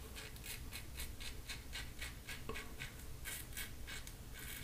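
Frank Shaving double-edge safety razor cutting stubble through shaving lather: a quick run of short, faint scraping strokes, several a second, on an against-the-grain pass with light pressure.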